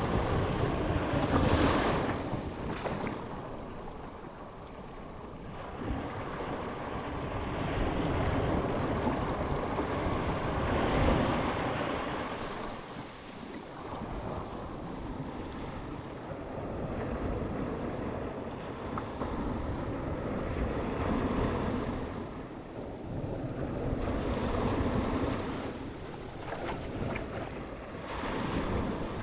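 Ocean surf: waves breaking and washing in, swelling and fading every few seconds.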